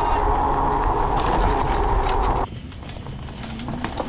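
Steady loud rush of wind and tyre noise from an electric bike ridden on pavement. About two and a half seconds in it cuts abruptly to a quieter ride on a dirt trail, with scattered ticks and crackles from the tyres and a steady thin high tone.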